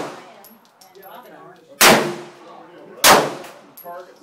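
Glock 19 9mm pistol fired twice, the shots about a second and a quarter apart, each a sharp crack with a short echoing tail; the tail of a previous shot is dying away at the start.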